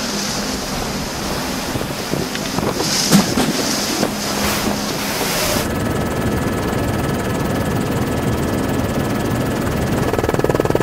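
Storm wind and breaking seas on a ship's deck, with wind buffeting the microphone and a few sharp knocks about three seconds in. About halfway through it cuts to a steadier low rumble with two faint steady tones.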